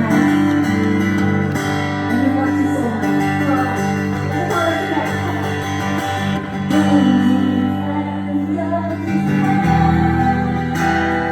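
Music with acoustic guitar and a wavering melody line that may be singing, running steadily, with a change in the low notes about nine seconds in.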